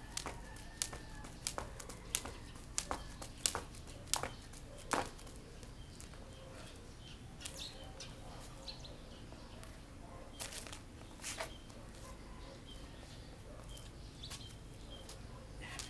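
Jump rope slapping the concrete at each skip, a sharp slap about every two-thirds of a second, stopping about five seconds in. Only a few scattered slaps follow, with faint bird chirps in the background.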